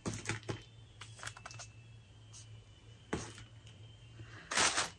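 Light taps and rustles of paper stickers, notepads and packaging being handled, with a brief louder crinkle of packaging near the end.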